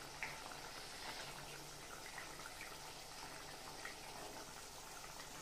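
Faint simmering of a thick curry in an aluminium pan, with a few small soft clicks and plops as boiled eggs are dropped in one by one.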